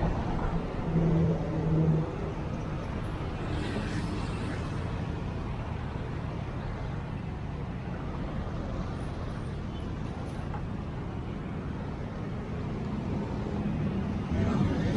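Street traffic: motor vehicles running past with a steady low rumble. There is a louder stretch with a brief steady low tone about a second in, and the traffic swells again near the end.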